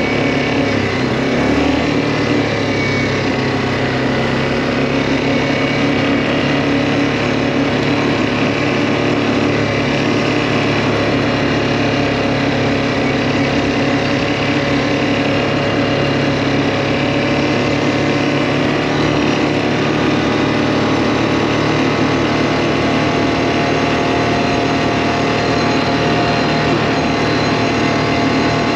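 Quad bike (ATV) engine running steadily at an even cruising speed while being ridden, heard close up from the rider's seat.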